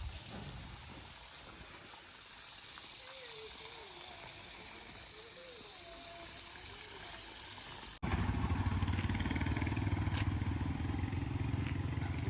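A quiet outdoor background with a faint wavering tone cuts off abruptly about two-thirds of the way in. A loud heavy diesel engine of a tractor or backhoe loader then runs steadily, close up, to the end.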